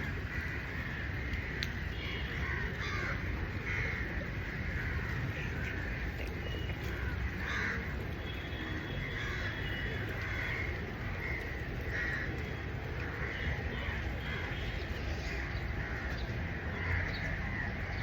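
Crows cawing again and again over a steady low background rumble.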